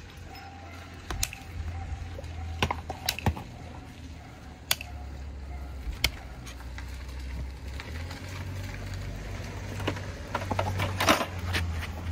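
Hoof nippers snipping a horse's hoof wall during a trim: scattered sharp clicks a few seconds apart, with a quick run of them about eleven seconds in, over a low steady hum.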